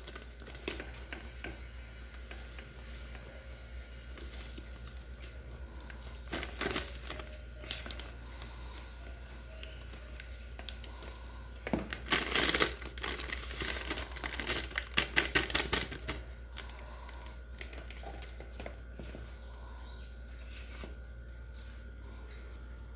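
Plastic cake-mix bag crinkling and crackling as the powdered mix is shaken out into a bowl, in scattered bursts with a louder run about halfway through.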